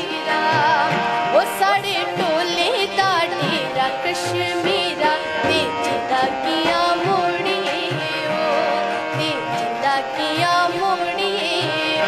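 A woman singing a melody with many wavering ornaments, accompanied by a harmonium's steady held tones.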